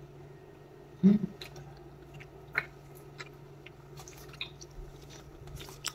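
Close-up chewing of crisp mango dipped in bagoong, with small wet mouth clicks, a louder thump about a second in and a sharper crunch about halfway through.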